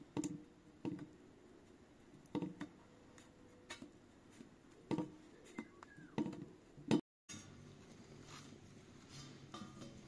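Metal fork pricking flatbread dough on a copper tray, its tines tapping through the dough onto the metal in about ten irregular taps, some in quick pairs. The tapping stops about seven seconds in, leaving only quiet background.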